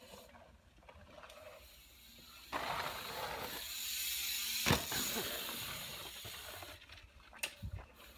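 A mountain bike passing close on a dirt-jump trail: its knobby tyres hiss on the dirt from about two and a half seconds in, with one sharp thud of the landing near the middle, then the noise fades as it rides away. A few short clicks near the end.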